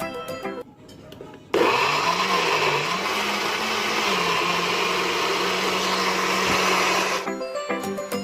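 Nutribullet blender running for about five and a half seconds, starting abruptly; its motor hum wavers in pitch for the first second or so, then holds steady until it cuts off.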